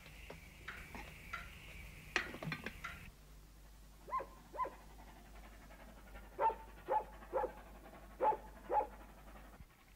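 A dog barking, seven short barks in pairs and a triple, starting about four seconds in. Before them, in the first three seconds, a few clicks and a sharp clatter.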